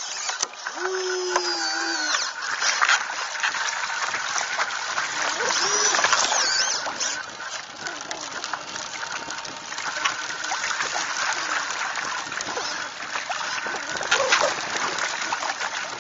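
Water splashing and rushing past the hull and foils of a Mini40 RC hydrofoil trimaran under sail, with many short splashes as it cuts through the chop. A bird's call is heard about a second in.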